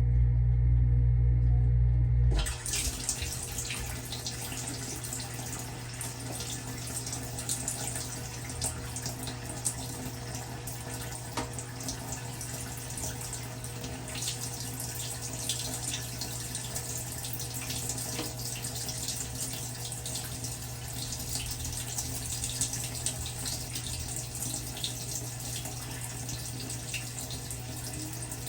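Whirlpool dishwasher heard from inside its tub: a loud low hum for the first couple of seconds stops suddenly, then water sprays and splashes steadily over a constant motor hum. The bottom spray arm is not spinning, because the wash motor is too weak to drive enough water; the repairman takes the motor for failing and in need of replacement.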